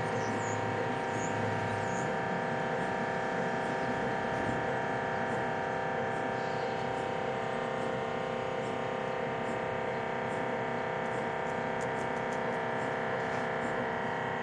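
MRI scanner running a scan sequence inside a mobile MRI trailer, heard through the trailer walls as a steady drone of several held tones. A lower hum underneath drops out about two seconds in.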